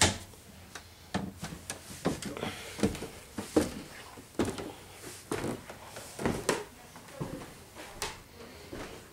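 Footsteps on wooden stairs and a bare wooden floor: a run of separate thumps and knocks, roughly one every half second to a second.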